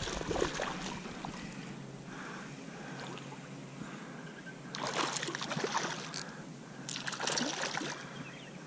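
Hooked smallmouth bass thrashing and splashing at the water's surface while being played on a line: a splash at the start, then two longer bursts of splashing about five and seven seconds in.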